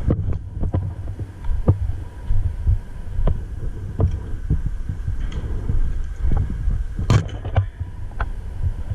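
A low, uneven thumping rumble with scattered sharp clicks at irregular moments, and one louder crack about seven seconds in.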